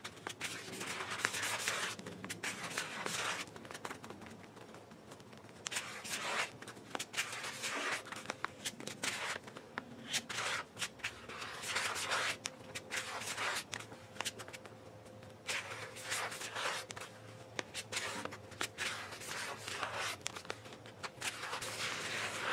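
Plastic body-filler spreader scraping and folding Rage Ultra body filler against a paper mixing board, in a run of irregular scraping strokes, as the filler is worked to an even colour.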